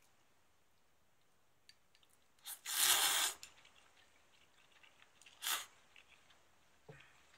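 Somen noodles slurped with a long, loud slurp about three seconds in, then a shorter slurp a couple of seconds later.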